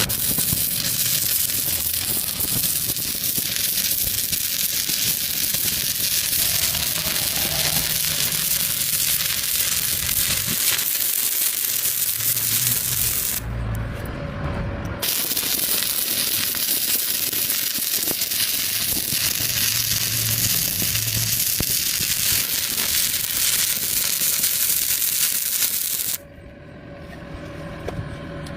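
Electric arc welding: a steady crackling hiss. It breaks off for about a second and a half about halfway through, then resumes, and stops a couple of seconds before the end.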